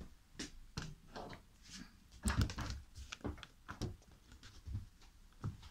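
Footsteps and camera-handling noise: a faint series of irregular soft knocks and low thumps while the camera is carried around a workbench, the loudest cluster a little past two seconds in.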